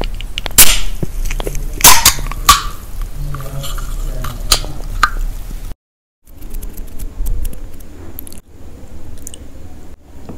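Intro sound effects for a channel logo: several sharp cracks or pops over the first five seconds, then a sudden half-second of silence. After the gap come quieter, scattered small clicks.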